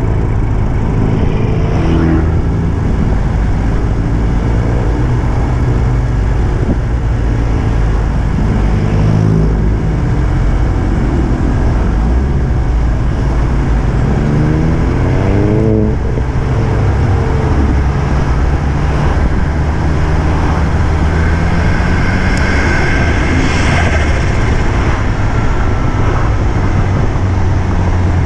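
Car engines running with a steady low rumble; about halfway through, one engine revs up in a quick rising sweep.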